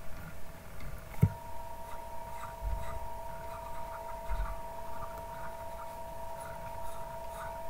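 Quiet room noise with a steady electrical hum. After a soft knock about a second in, a second, higher hum tone joins it, and faint ticks are scattered throughout.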